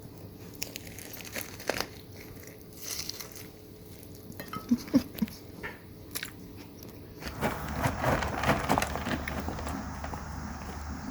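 Crunchy biting and chewing of food, with scattered sharp clicks. About seven seconds in, it gives way to a louder, denser stretch of noise.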